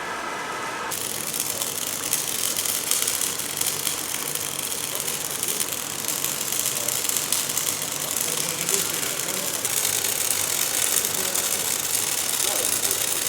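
Electric welding arc crackling and sizzling steadily, starting about a second in.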